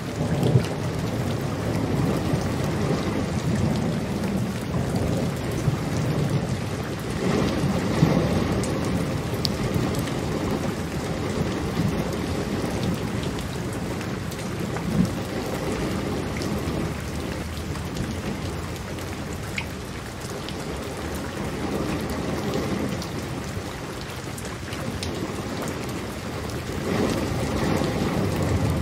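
Steady rain with rolling thunder, the low rumble swelling near the start, around eight seconds in, and again near the end.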